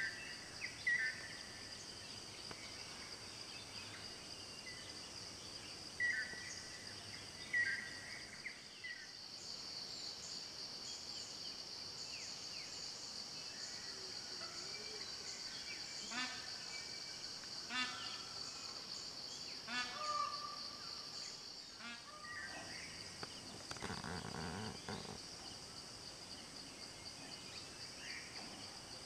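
Forest ambience: a steady, high-pitched insect drone throughout, with short bird chirps near the start and again around six to eight seconds in, and a few rapid runs of repeated bird calls past the middle.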